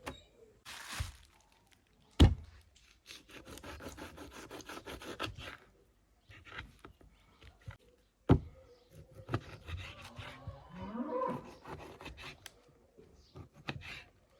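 Food-preparation handling sounds: two sharp knocks, about two seconds in and about eight seconds in, with a run of rapid scraping taps between them and a brief wavering call near the end.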